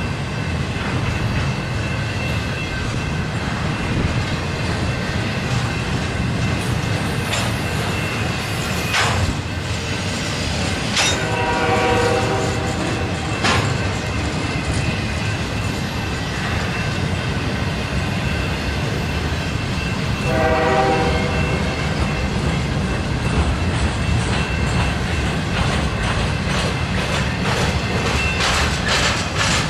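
Slow intermodal freight train rolling past: a steady rumble of steel wheels with clacking and occasional sharp clanks from the cars. A locomotive horn sounds briefly about twelve seconds in and again about twenty seconds in.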